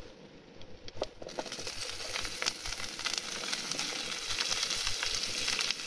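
Asparagus spears sizzling as they are laid by hand into a pan of hot, browned butter on a camping stove. The sizzle starts about a second in and grows louder as more spears go in.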